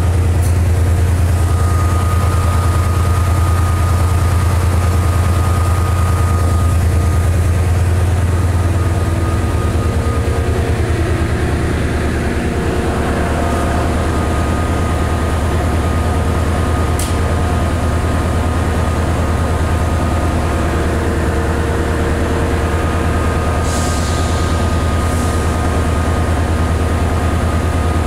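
Class 68 diesel-electric locomotive 68011's Caterpillar C175-16 V16 diesel engine running at idle just after start-up. It makes a steady low hum with a fainter whine above it.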